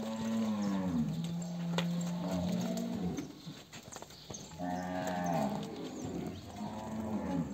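Cattle mooing: one long moo that starts higher and drops to a held lower note for about three seconds, then two shorter moos in the second half.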